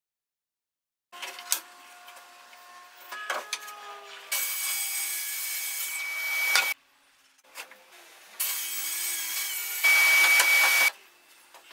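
Festool TS 55 plunge track saw cutting through wood in two runs of a couple of seconds each, a steady whine over the cutting noise; the second cut is louder toward its end. Before the cuts, a few knocks and rattles.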